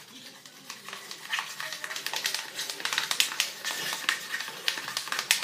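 Slime mixture of shampoo and detergent being stirred hard in a container: rapid, irregular sticky clicks and taps that grow busier about a second in.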